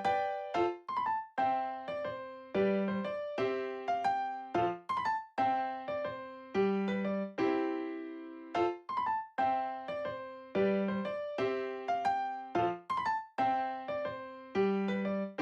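Background music: a bright electric piano melody with a steady rhythm, each note struck and fading.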